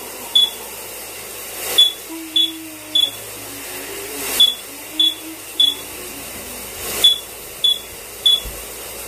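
Smoke alarm sounding in groups of three short high beeps, a group about every two and a half seconds, over the steady hiss of a running shower. A low wavering voice sounds underneath in the middle.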